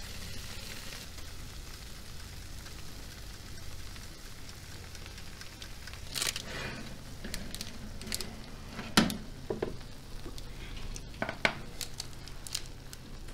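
Oil and butter sizzling in the baking tray of spinach rose börek fresh from a hot oven, a steady hiss over a low hum. From about six seconds in, the tray is handled with a few sharp knocks and clatters, the loudest about nine seconds in.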